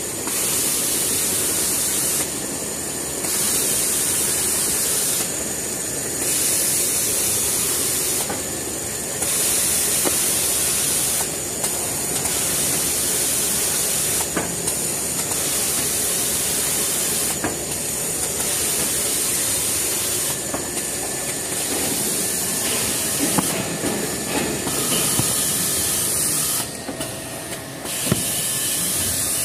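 Jumbo-roll toilet paper production machinery running, a steady mechanical hiss with a brief dip about every three seconds.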